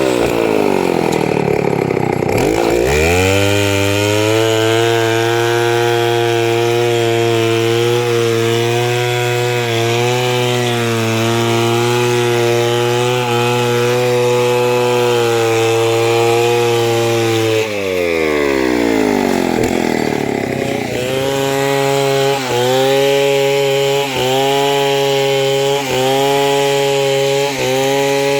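Two-stroke chainsaw running at full throttle while cutting timber into boards. The engine pitch sags and recovers at the start and again about two-thirds of the way through, with small regular dips in the last stretch.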